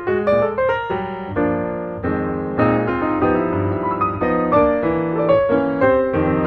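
Background piano music: a run of quick notes, then held chords in the middle, then quick notes again near the end.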